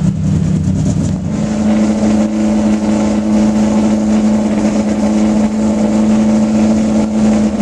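V12 engine of a Ferrari 365 GTB/4 Daytona race car running at a steady, held engine speed, one even tone from about a second in. Before that, a rougher, less even engine sound.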